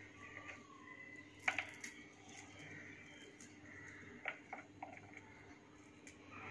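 A few faint soft clicks and rustles over quiet room tone: fingers pulling apart sliced onion pieces on a plastic chopping tray.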